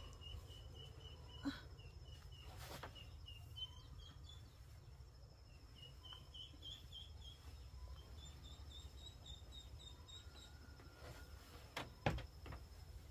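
Faint outdoor ambience: a bird calling in quick repeated chirps, several a second, over a faint steady high insect tone and a low rumble. A couple of sharp knocks sound near the end.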